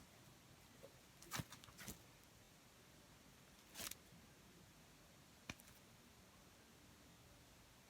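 Faint, sparse clicks and pops of slime being worked by hand, four or five scattered over several seconds with near silence between.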